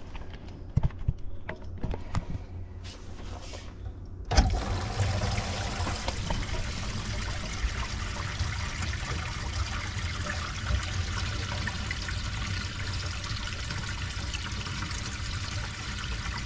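A few handling knocks and clicks, then about four seconds in a sudden rush of water that keeps going steadily: a filled kitchen sink draining down through its plastic P-trap, a flood test of the trap for leaks.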